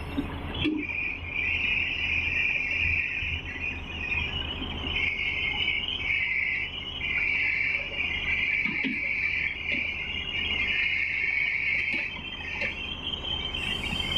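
Large Tata Hitachi hydraulic excavator's diesel engine running under load as it digs, a low steady rumble. Over it is a steady high-pitched buzz that starts about a second in and fades near the end.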